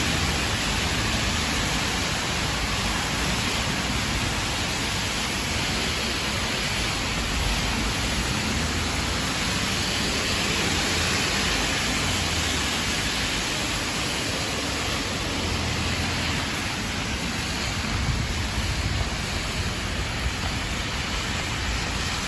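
Heavy rain falling steadily in an even hiss, with car tyres swishing past on the wet road.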